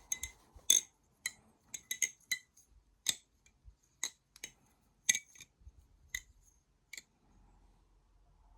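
Balisong (butterfly knife) being flipped: irregular sharp metallic clicks and clacks as the handles swing around and strike the blade's tang and each other, stopping about seven seconds in.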